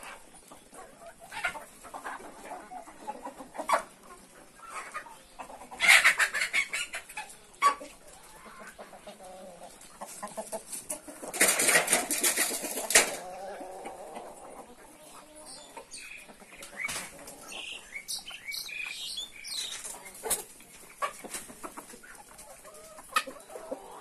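A flock of Kadaknath chickens clucking as they feed, with short pecking clicks throughout. Two loud noisy flurries of wing flapping come about six seconds in and around twelve seconds.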